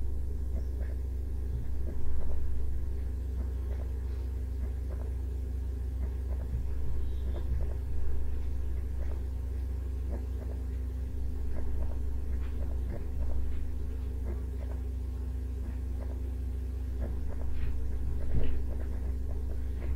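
Steady low background hum with a faint buzz, with scattered faint clicks and taps over it.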